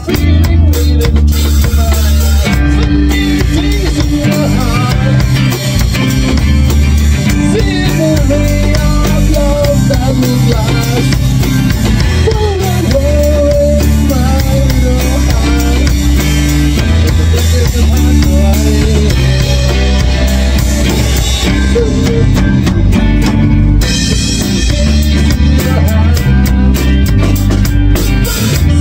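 A small rock band playing loudly in a rehearsal room: a drum kit keeps a steady beat under electric guitar and strummed acoustic guitar.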